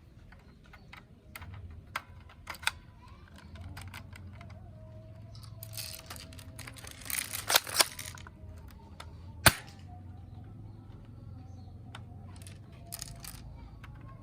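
Plastic clicks and rattling from a toy gun being handled, with scattered sharp snaps, a rattling stretch in the middle, and the loudest single snap about nine and a half seconds in.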